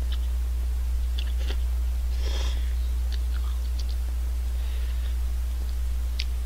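A person eating cup ramen noodles, slurping them in and chewing with small wet mouth clicks and one short slurp about two seconds in. A steady low hum runs underneath throughout.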